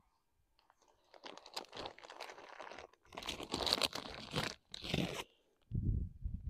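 Clear plastic bag crinkling and rustling as a gloved hand digs into it for handfuls of moist sawdust spawn, in spells between about 1 and 5 seconds in. A low rumbling noise follows near the end.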